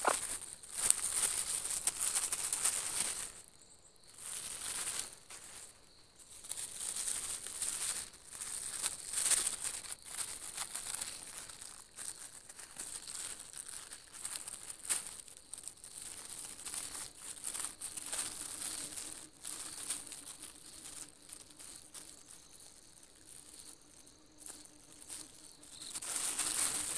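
Close rustling and crackling in irregular spells of a second or two, loudest in the first few seconds and again near the end, with quieter gaps between.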